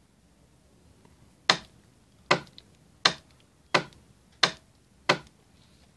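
Solenoid point motors on a model railway three-way point snapping over, six sharp clicks about two-thirds of a second apart as the point is thrown back and forth to test the motors' double-sided-tape mounting.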